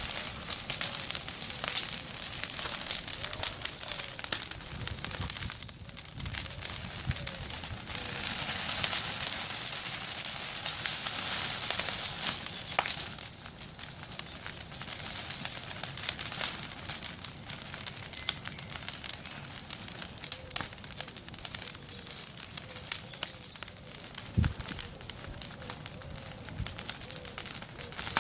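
Bonfire burning, a steady crackle and hiss full of small pops, swelling louder for a few seconds about a third of the way through. One sharp low knock stands out near the end.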